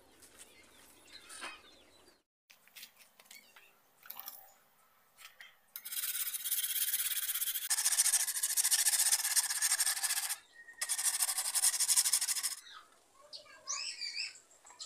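A whetstone rubbed rapidly back and forth along a wet curved blade to sharpen it, in two long spells of rasping starting about six seconds in, with a short break after about ten seconds.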